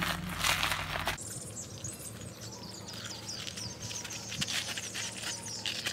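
Wild birds chirping and singing outdoors, many short quick calls one after another. A second of loud rustling noise at the start cuts off abruptly.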